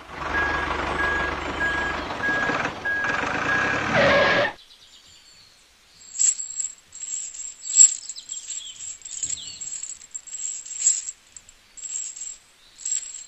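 A toy-sized DIY tractor's small electric motor running, with a high beep repeating about twice a second, which cuts off abruptly. Then light metallic clicks and clinks as a small steel chain is handled and hooked onto the toy tractors.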